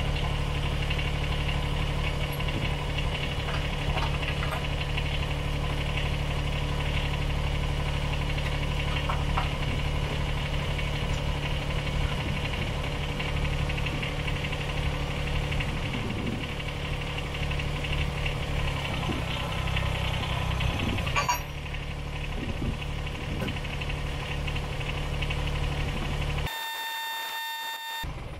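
Kubota BX25D compact tractor's three-cylinder diesel idling steadily. About two-thirds through, the engine note changes and there is a sharp click. Near the end the engine sound cuts out and a short, high electronic tone follows.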